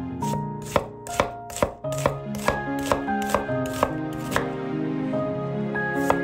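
Knife chopping on a cutting board in a steady rhythm, about two strokes a second, over soft background music.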